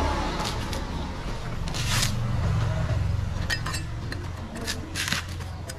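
A hand tool scraping and knocking on a dry coconut while it is husked and shaved: a run of short, sharp scrapes and clicks, over a low rumble that swells in the middle.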